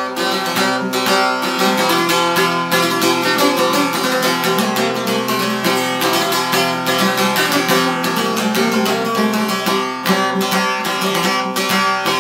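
Long-necked Albanian folk lute strummed rapidly with a steady drone, playing an instrumental introduction.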